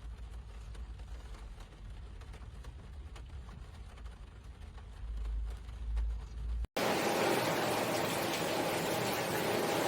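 Rain: light patter with scattered drips over a low rumble, then, after a sudden break about two-thirds of the way in, a heavier downpour with a loud, steady hiss.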